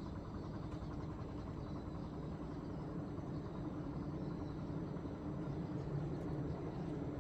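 Distant rumble of an approaching train, not yet in sight: a steady low hum that grows slightly louder.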